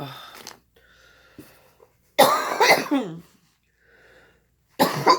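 A woman coughing hard in two fits, the first about two seconds in and lasting about a second, the second shorter near the end. She is coughing on food caught in her throat.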